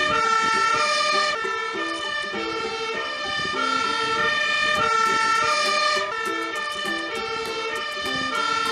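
Fire engine's two-tone siren blaring, alternating between a high and a low note, a full cycle about every second and a bit, as the MAN aerial-ladder fire truck pulls out with its lights on.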